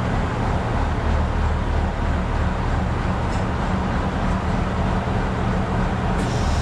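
Bizon Rekord combine harvester's diesel engine running steadily at a constant speed.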